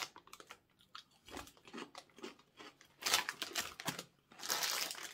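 Close-up chewing of chewy, sugar-coated fizzy cola sour candy: small wet clicks, then two louder noisy bursts about three and four and a half seconds in.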